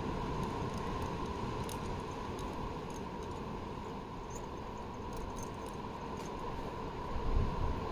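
Wind on the microphone outdoors: a steady noise with a few faint clicks and a slight gust near the end.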